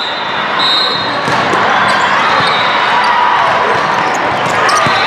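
Volleyball rally in a large, echoing sports hall: the ball thumps off hands and forearms a few times over a constant din of players' and spectators' voices.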